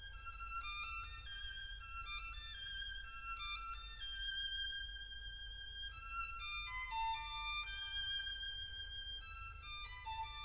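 Background music: a slow violin melody of held notes that step up and down in pitch.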